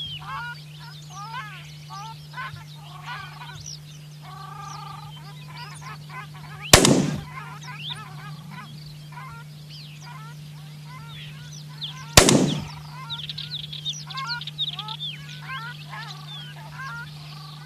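A flock of waterfowl calling with short, repeated honks, busier near the end, over a steady low hum. Two gunshots ring out, about five and a half seconds apart, and are the loudest sounds.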